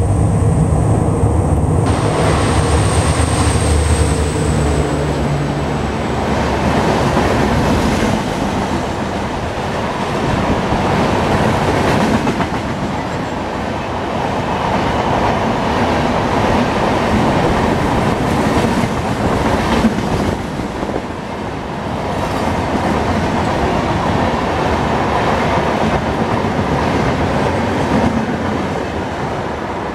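A WDP4D diesel locomotive's engine runs under load as it passes at speed; its low throb fades after about five seconds. A long rake of passenger coaches then rolls by with a steady rush of wheels and rhythmic clickety-clack over the rail joints.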